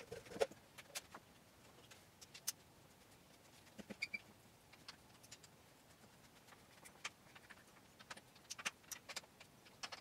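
Faint, scattered clicks and taps of a sump pump check valve being fitted back onto the PVC discharge pipe and its band clamp being tightened with a screwdriver.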